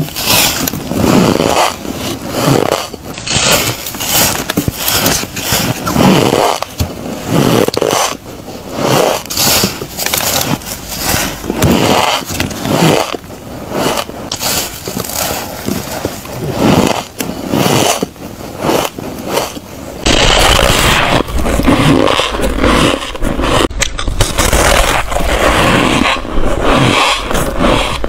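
Close-miked bites of freezer frost: repeated crisp crunches of icy frost being bitten and chewed, one or two a second, becoming denser over a low hum in the last several seconds.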